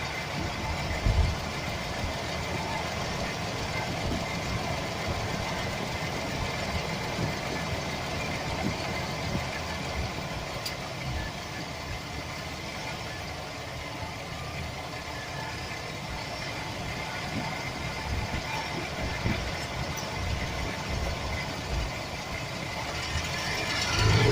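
Chevy Express 4.3 L V6 engine idling with an irregular low knocking rattle, which the owner puts down to a bad starter motor gear bumping against the flexplate. The engine gets louder just before the end.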